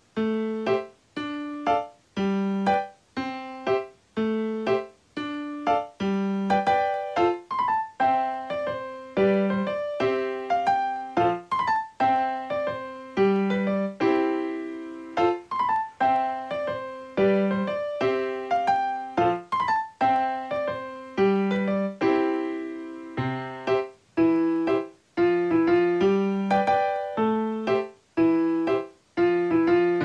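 Background instrumental music: a light melody of short struck keyboard notes that die away, with brief pauses between phrases.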